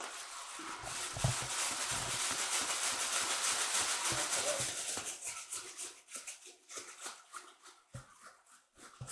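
Plastic shopping bag crinkling and rustling right against the microphone, dense for about five seconds and then thinning to lighter, scattered rustles. A few dull handling bumps come about one to two seconds in.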